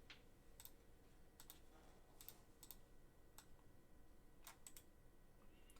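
Faint, irregular clicks of typing on a computer keyboard, a dozen or so scattered keystrokes with pauses between them.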